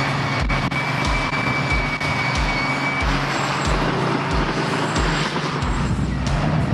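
Heavy earth-moving machinery running with a steady diesel engine drone, along with a low thump about two and a half times a second that gives way to a continuous rumble near the end.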